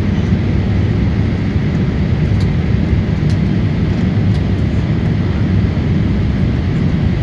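Steady engine and airflow noise inside the cabin of a Boeing 787-8 Dreamliner in flight, a deep, even rumble with no change in pitch.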